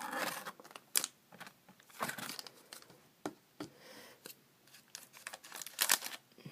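Foil booster pack wrapper and trading cards crinkling and rustling as they are handled, in short, scattered bursts with a few sharp clicks and quiet gaps between.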